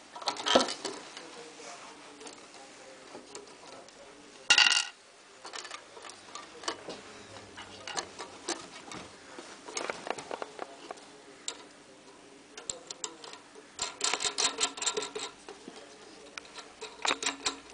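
Metal parts of a display stand handled and fitted together: scattered clicks and knocks, with a louder short metal clatter about four seconds in. Runs of rapid ticking clicks come later as a bolt is fastened at the metal base plate.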